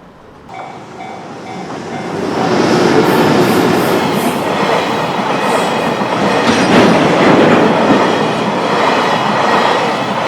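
A JR Chuo Line electric train passing over a level crossing: its noise swells over the first couple of seconds and then stays loud as the cars run by, with wheels on rails.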